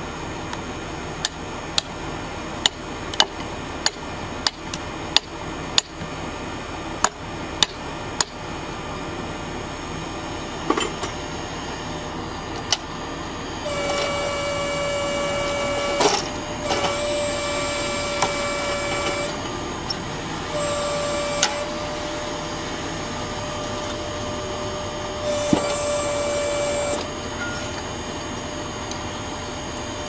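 A tractor-driven vertical hydraulic log splitter running steadily. In the first third there are about a dozen sharp knocks, roughly one every half-second to second. In the second half a steady high whine comes in for long stretches, with breaks between them, as the machine works under load.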